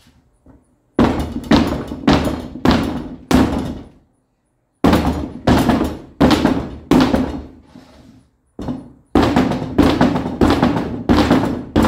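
Big rubber mallet pounding a tire sidewall just above the rim lip, about sixteen heavy blows roughly two a second in three runs with short pauses. It is knocking the tire bead down over the wheel lip to mount the tire without tools.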